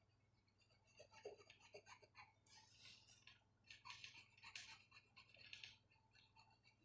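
Faint scratching of a colored pencil on paper, coloring in with quick short strokes.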